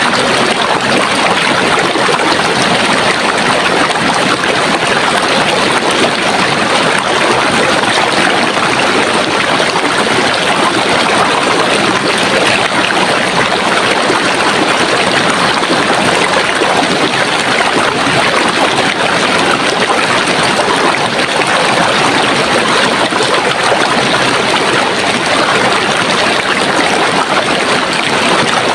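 Running water: a stream flowing steadily, a continuous even rush and trickle with no pauses or changes.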